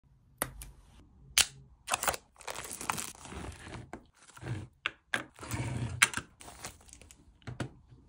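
Clear plastic wrapping crinkling as it is pulled off, in two longer rustling stretches, broken by sharp clicks and knocks of small metal objects set down on a wooden tabletop.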